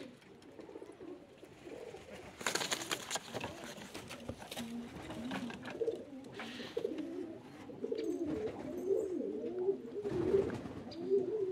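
Zamość pigeons cooing in a loft: wavering low coos, sparse at first and almost continuous from about four seconds in. A brief noisy rustle comes about two and a half seconds in.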